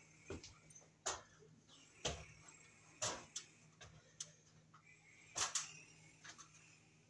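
Handling noise as a ceiling fan's motor housing and light kit are carried up an aluminium stepladder: a series of light knocks and clinks, roughly one a second, the loudest pair about five and a half seconds in, over a faint steady low hum.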